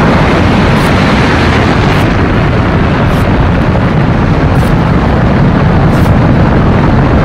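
Space Shuttle launch just after booster ignition: a loud, steady rocket-engine rumble with crackle.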